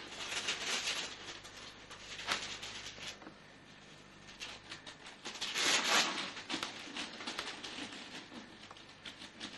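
Christmas wrapping paper rustling and crinkling in irregular bursts as a present is handled and unwrapped, loudest about six seconds in.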